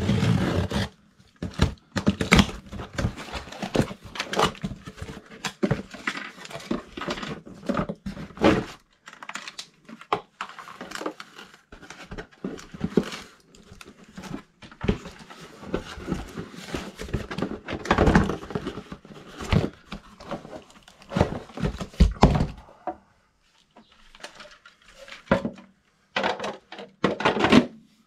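Irregular clatter of hands working a plastic condensate pump and its drain tubing: knocks, clicks and rustles of plastic, with the loudest thuds about two-thirds of the way through.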